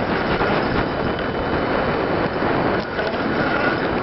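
Wind buffeting the microphone: a steady, loud rush with ragged low rumbling.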